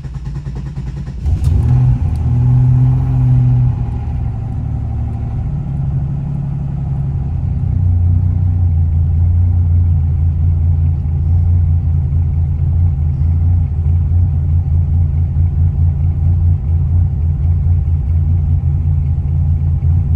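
Turbo Buick G-body's turbocharged V6 starting up: it catches about a second in, runs up, then settles into a steady idle around 1,150 rpm.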